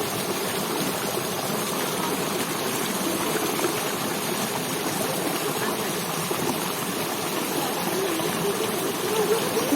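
River water rushing steadily, a constant even hiss of flowing water.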